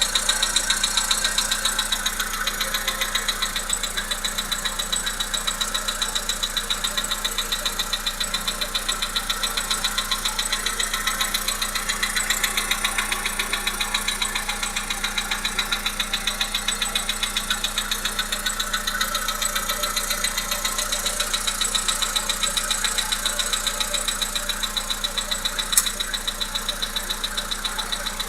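Volkswagen Polo Sedan's 1.6-litre CFNA four-cylinder petrol engine running with a steady, rhythmic knock. There is a single sharper click near the end.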